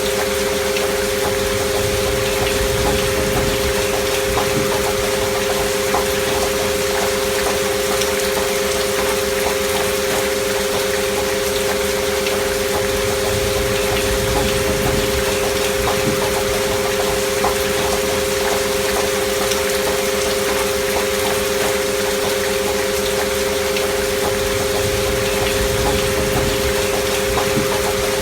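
Steady rain under two continuous pure sine tones, one near 528 Hz and a lower one near 400 Hz, held unchanged as a binaural healing-frequency drone.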